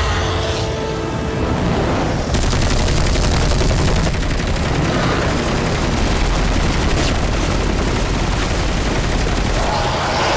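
Film battle sound effects of Apache attack helicopters firing: after about two seconds a dense, sustained barrage of rapid cannon fire and rocket launches with booms sets in suddenly, mixed with the film's music score.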